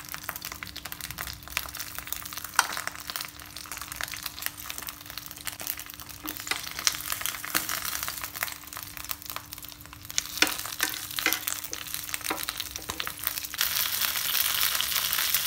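Banana-leaf-wrapped pearl spot fish sizzling in oil in a frying pan, with sharp clicks and scrapes from a wooden spatula as the parcels are turned. The sizzle gets louder near the end.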